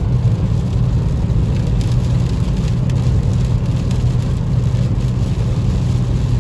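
Cabin noise of a 2023 Nissan Versa S cruising at about 80 mph in fifth gear: a steady low drone from its 1.6-litre four-cylinder engine and the tyres on the wet road, with rain hitting the car.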